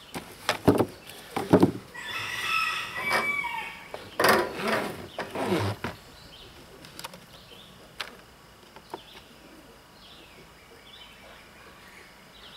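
A few sharp clicks from a plastic screwdriver-bit case being handled, then a rooster crowing twice, each crow about a second and a half long, the second falling away at its end.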